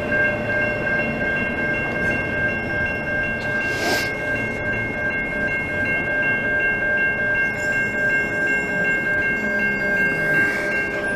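Level crossing warning bells ringing steadily as the last cars of a CN double-stack intermodal freight train pass and the train runs off. There is a brief hiss about four seconds in.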